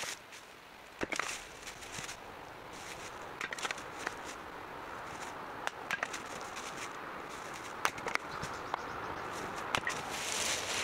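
Splitting axe striking firewood rounds on a chopping block: a sharp crack every two seconds or so as the logs split, with split pieces falling onto the ground.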